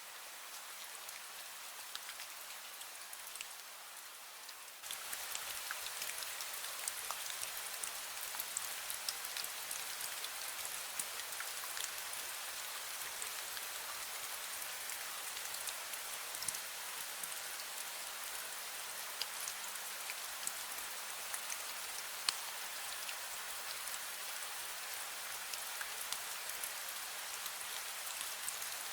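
Steady rain falling on surfaces, a dense hiss of fine drops with scattered single drips, becoming abruptly louder about five seconds in.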